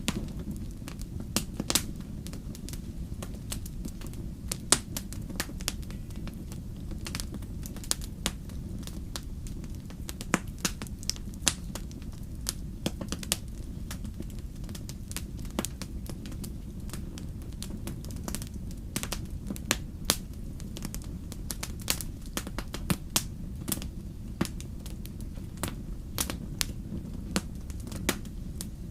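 Wood fire burning in a fireplace, with irregular sharp crackles and pops, several a second at times, over a steady low rumble.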